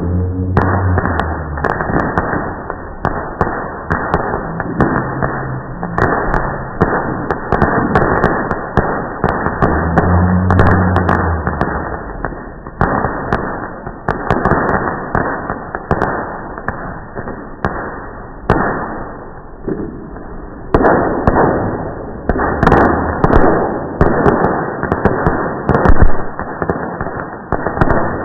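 Fireworks going off in a dense, continuous barrage of bangs and crackling, played back slowed down with the slow-motion footage, so the sound is muffled and drawn out. The loudest bangs come about two-thirds of the way through and again near the end.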